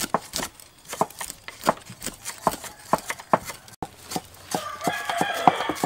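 Steel cleaver chopping herbs finely on a wooden chopping block, quick uneven strokes about three a second. Near the end a chicken calls with a drawn-out cry over the chopping.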